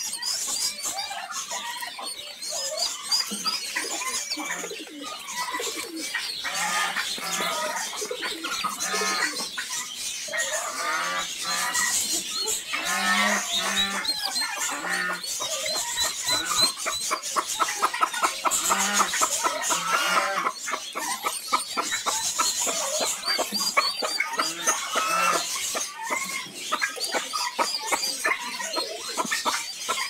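A cage full of baby chicks peeping continuously in many overlapping high chirps, with lower, longer calls now and then.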